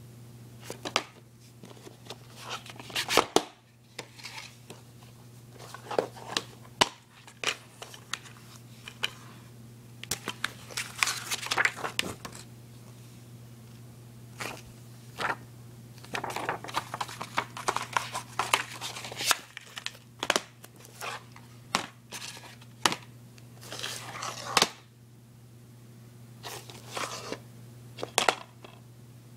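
Plastic DVD cases handled on a wooden surface: sharp clicks and knocks of the cases being opened, closed and set down, with rustling of the paper insert and plastic, over a steady low hum.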